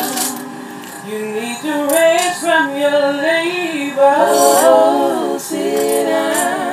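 Four-part a cappella gospel singing in quartet style, every part sung by the same woman and layered together. The chords soften briefly about a second in, then the full harmony comes back.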